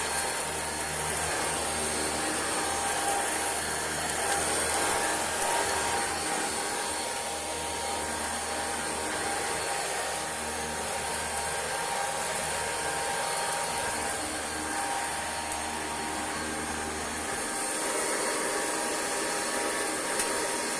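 Singer System 90 vacuum cleaner running steadily as it cleans a rug, a continuous motor whine and rush of air. Its tone shifts briefly about three-quarters of the way through.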